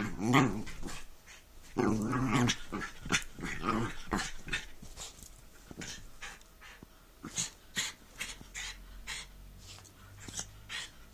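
A small terrier play-growling in two strong bursts in the first three seconds, then shorter growls. After that, a run of quick scuffs and snuffles as it rolls about on the bedding.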